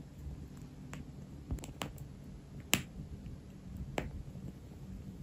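A burning candle's wooden wick crackling like a small fireplace: sharp, irregular pops, about six in five seconds, over a low steady room hum.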